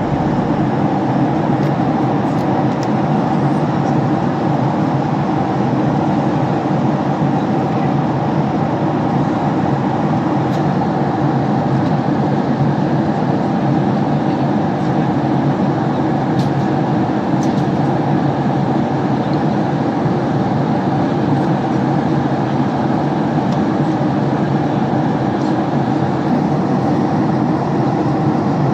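Steady cabin noise of a Boeing 767-300 airliner in flight: a constant drone of engines and airflow, with a few faint ticks.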